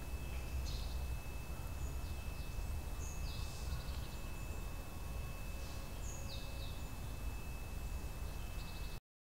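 Outdoor woodland ambience: a steady low rumble with several short, high bird chirps a few seconds apart. The sound cuts off abruptly near the end.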